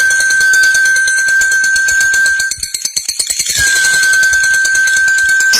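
Lovebird giving its long, rapid chattering trill ('ngekek panjang'), in two long bouts with a short break a little past halfway. A steady high tone runs under each bout.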